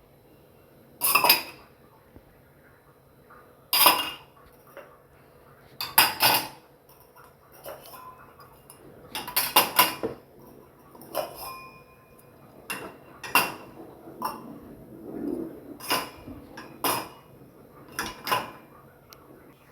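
Dishes, cups and vessels clinking and clattering as they are set into dishwasher racks: a dozen or so separate knocks at irregular intervals, some leaving a short metallic ring.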